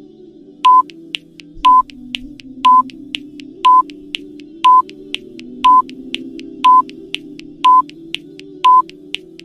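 Electronic countdown-timer beep sounding about once a second, each a short high beep, over a soft, steady music bed.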